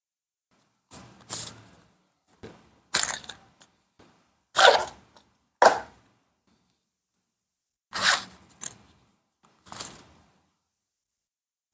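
Unboxing handling sounds: a cardboard box being opened and a zippered nylon pouch taken out and unzipped, with paper and a plastic bag shuffled inside. These come as about eight short, separate bursts of scraping and rustling.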